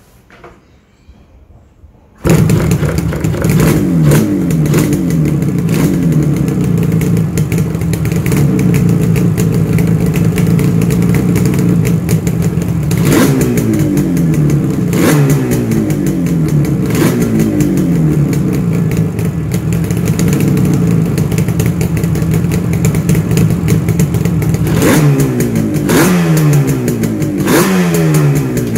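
Yamaha RD350's air-cooled two-stroke parallel-twin engine starts suddenly about two seconds in, then idles while the throttle is blipped again and again, each rev falling back to idle. There are clusters of quick blips early, in the middle and near the end.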